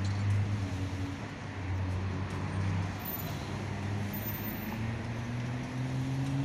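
Tram and road traffic running through a junction: a steady low hum of vehicles moving, with one tone slowly rising in pitch in the second half as a vehicle picks up speed.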